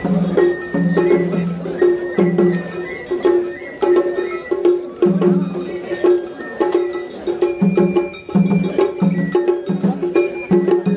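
Traditional Japanese festival music, with a steady percussive beat and short repeated notes.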